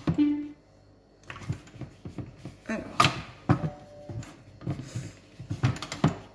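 Plastic lid of a heating food processor being fitted and twisted shut: a run of plastic clicks, knocks and scrapes, with a couple of short tones.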